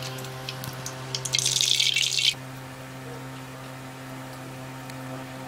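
Cooking oil pouring from a jar into an empty metal kadai, a hissing, splashing trickle that cuts off sharply about two seconds in. A steady low hum continues underneath.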